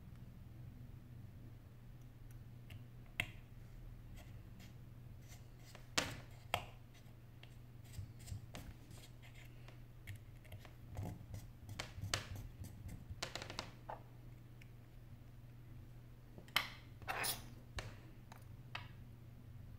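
Small clicks, taps and light scrapes of a precision screwdriver and tiny parts against an opened iPhone 8 Plus during disassembly. They come irregularly, with a few sharper clicks about 3 and 6 seconds in and again near the end.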